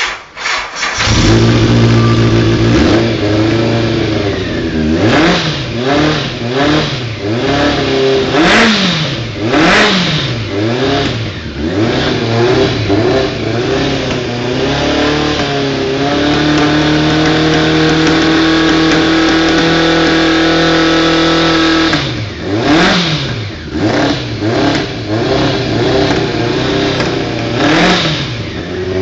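Honda CBX 750 motorcycle's inline-four engine catching in the first second, then revved repeatedly, its pitch rising and falling with each blip. It is held steady at high revs for about six seconds past the middle, then blipped again.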